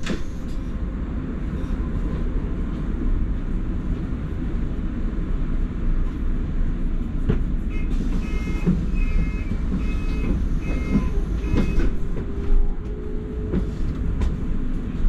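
Inside a London double-decker bus on the move: steady engine and road rumble with scattered rattles and knocks. About halfway through comes a string of short electronic beeps, roughly two a second, for some four seconds.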